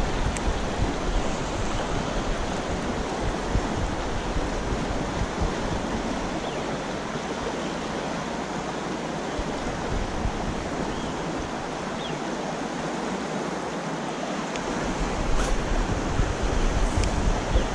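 Steady rush of a fast-flowing river running high over a shallow stony riffle, with wind rumbling on the microphone that eases off in the middle. A couple of faint ticks near the end.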